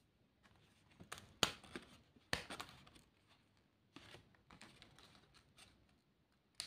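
Paper sticker pieces being peeled out of a card sticker sheet and handled: quiet short tearing rustles and light crisp taps of card, coming in a few separate bursts with still gaps between.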